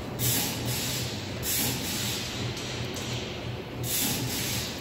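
Steady low machine hum with three short bursts of hissing: one right at the start, one about a second and a half in, and one near the end.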